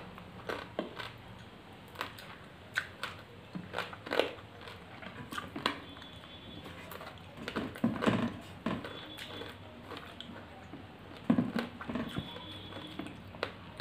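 Close-up eating sounds of people eating rice and curry by hand: chewing and mouth smacks, with fingers working food on plates. These come as irregular short clicks and smacks.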